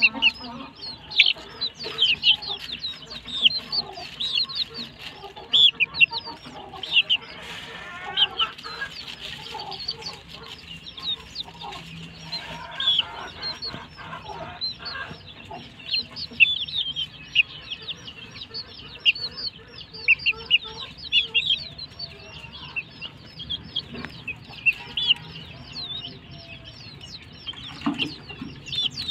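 A flock of young chickens peeping continuously, with many short high chirps every second and an occasional lower cluck.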